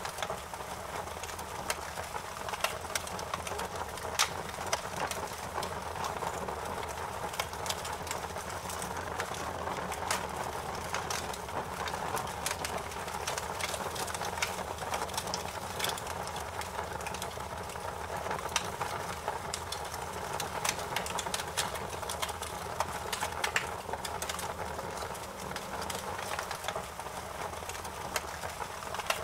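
Wood fire in a fireplace crackling: a steady soft hiss and low rumble with frequent sharp pops and snaps at irregular intervals.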